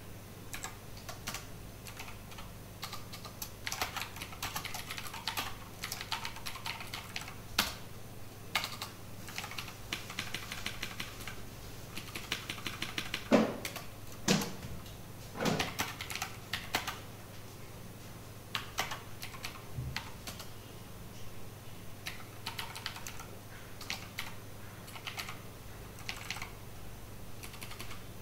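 Typing on a computer keyboard in irregular runs of keystrokes, with a few heavier key strikes near the middle.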